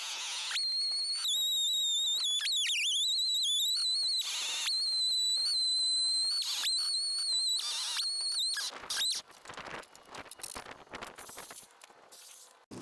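Husqvarna 572 XP chainsaw on a chainsaw mill running at full throttle through a ginkgo log, a steady high whine that wavers and sags in pitch for a moment about three seconds in. It cuts off about nine seconds in, leaving scattered knocks.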